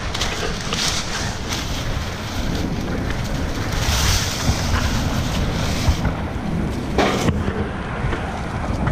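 Wind buffeting the microphone: a steady low rumbling rush, with a short louder gust about seven seconds in.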